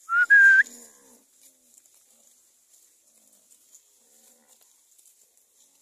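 A short, loud two-note whistle, the second note rising in pitch: a herder whistling to drive a herd of cattle along. Afterwards only faint scattered small sounds.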